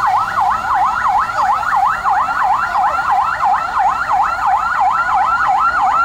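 Police vehicle siren wailing in a fast yelp, its pitch sweeping up and down about five times a second.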